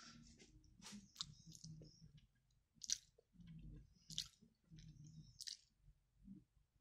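Near silence broken by a few faint, short clicks and rubs as small carved wooden pieces are handled and fitted together between the fingers.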